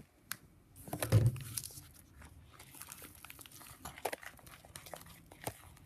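Glue slime being stirred with a silicone spatula in a bowl as more activator is worked in: soft squelching and scraping with scattered small clicks, and a dull knock about a second in.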